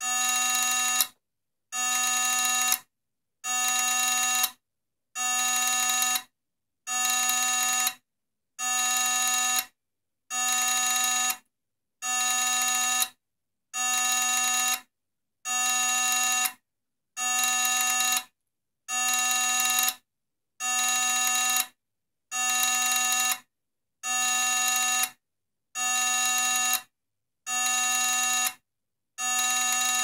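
Failed hard disk drive giving a steady buzzing tone of a little over a second, cut by short gaps and repeating about every second and three-quarters. Its platters are not spinning because of a logic board failure.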